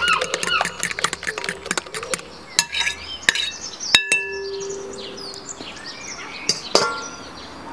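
Spoon stirring mashed banana batter in a glass mixing bowl, clicking and scraping against the glass, with the clicks thinning out after about two seconds. About four seconds in, a single sharp clink rings briefly on the glass.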